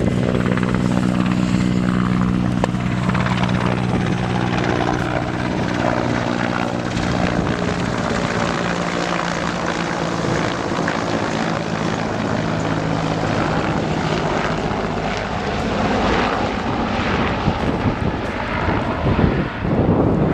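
Helicopter running, a steady drone made of several low tones over a rushing noise. The tones fade in the second half and the sound turns rougher and noisier.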